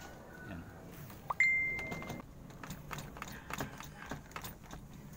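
Scattered light clicks and taps of a hand handling a car's plastic interior door trim. About a second and a half in there is one sharp metallic ping that rings for under a second.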